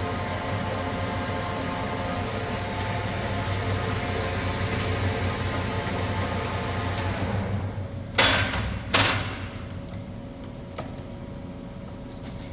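A Webb 20-1/2 x 60 heavy-duty gap bed lathe, 10 HP motor, running with a steady hum of several tones. The hum dies away about seven seconds in. Two loud clunks follow about a second apart.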